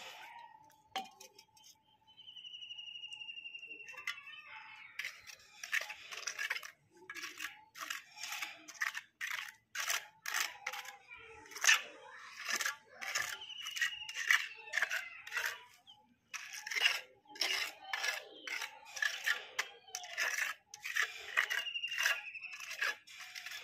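Steel mason's trowel scraping and patting wet cement slurry on a concrete roof in quick repeated strokes, about two a second, starting about five seconds in.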